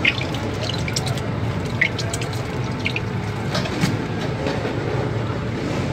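Plastic squeeze bottle squirting mayonnaise, with a few short sputters and squelches as it is squeezed, over a steady low rumble.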